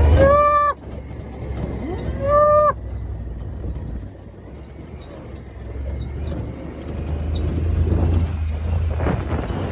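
Cattle bawling twice, each call rising and then held for under a second, the first right at the start and the second about two seconds in. Underneath is a steady low engine rumble that grows louder in the second half.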